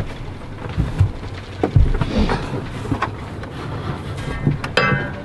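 Wind buffeting the microphone, with scattered knocks and rustles of hands and cable being worked at a sailboat's steering pedestal, and a short rasping squeak near the end.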